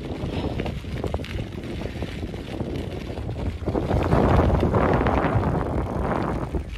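Wind buffeting the microphone of a phone riding on a moving bicycle, with scattered small knocks and rattles. The wind gets louder about four seconds in and eases off just before the end.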